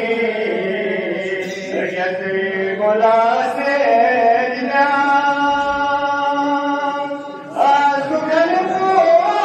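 A man recites a Balti qasida, a devotional poem, as an unaccompanied melodic chant, drawing out long notes. Past the middle he holds one note for a couple of seconds, breaks off, and starts a new phrase.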